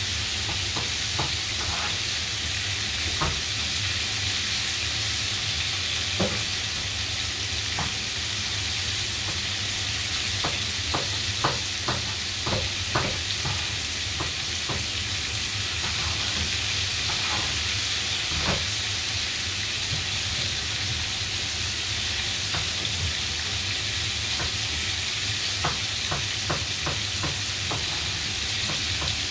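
Coated chicken pieces shallow-frying in hot oil in a frying pan: a steady sizzle with scattered sharp pops and crackles, coming in clusters now and then.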